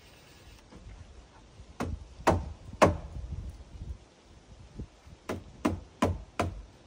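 Hammer blows on wood: three strikes about half a second apart, a pause, then four quicker strikes near the end.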